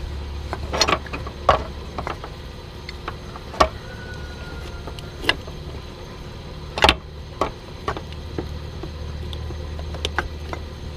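Irregular clicks and knocks as a thermostat housing is wrestled by hand out of a Duramax diesel engine bay, with parts and hoses knocking against the engine, over a steady low hum.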